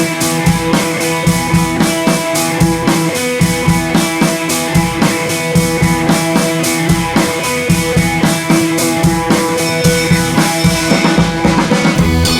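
Background music with a steady drum-kit beat, about four hits a second.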